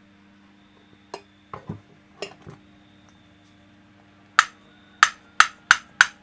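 Small metal tools and parts clinking and tapping on a motorcycle cylinder head during valve stem seal work: a few soft knocks, then five sharp, ringing metallic taps in quick succession near the end.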